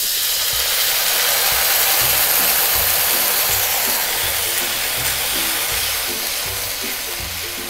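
Water poured into shrimp paste frying in hot oil in a wok, setting off a loud sizzling hiss that starts suddenly and slowly dies down.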